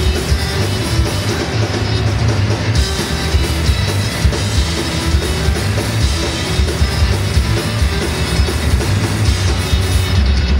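Heavy metal played live on bowed cellos and a rock drum kit: loud, dense and continuous, with heavy drums under a wavering cello melody.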